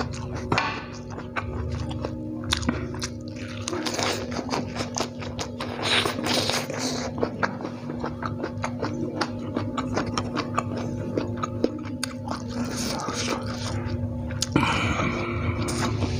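Close-miked chewing of fried instant noodles with omelette and bean sprouts: many small sharp mouth clicks throughout, with music playing in the background.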